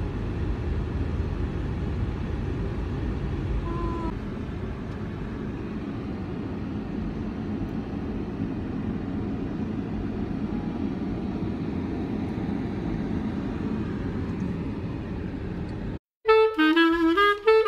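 Steady road and engine noise inside a moving car's cabin. About sixteen seconds in it cuts off, and upbeat swing-style music with saxophone begins.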